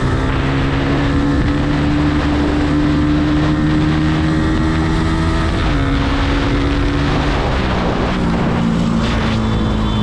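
Yamaha R15's single-cylinder four-stroke engine running at steady revs while riding, heard from on board over a steady rush of road noise. Its pitch steps down slightly about six seconds in and again near eight seconds, as the revs ease.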